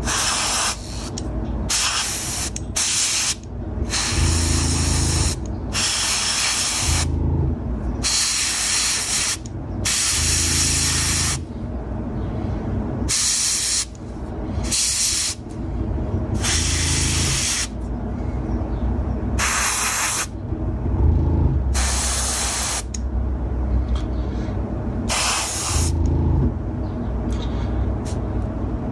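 Airbrush spraying yellow paint onto a small model engine block in repeated short bursts of hissing air and paint, some about a second long with brief pauses between, coming less often in the second half.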